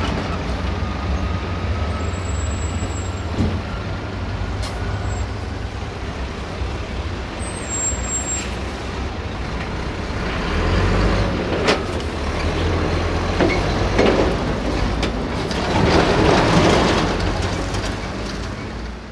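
Heavy diesel trucks running as they drive slowly across a railway level crossing close by, with a few sharp knocks in the second half as they go over the rails. The sound swells near the end, then fades out.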